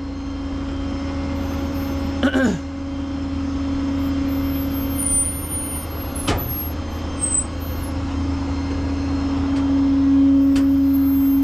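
Tow truck engine running steadily with a constant whine over a low rumble, growing a little louder toward the end; a sharp click about six seconds in.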